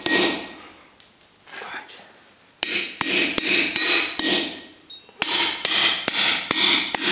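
Hand-hammer blows on a round hole punch driving through a red-hot bar on a bolster plate over an anvil, each blow ringing. One blow at the start, then a steady run of blows at roughly two to three a second from about two and a half seconds in, broken by a short pause, then another run.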